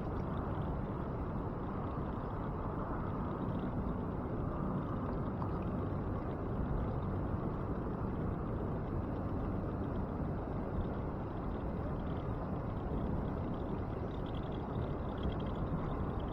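Steady, even rushing of water flowing below the dam, low and continuous, with no distinct events.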